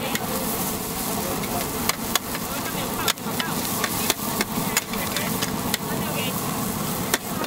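Radish cake (char kuih kak) stir-frying and sizzling in a wok, with a metal spatula clanking and scraping against the pan at irregular intervals. Background chatter runs underneath.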